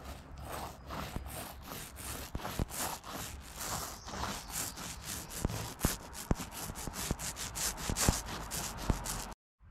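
Small mini paint roller rolled back and forth through wet red paint on the hull of a wooden kayak: a tacky rubbing in quick strokes, with sharp ticks mixed in. It cuts off suddenly near the end.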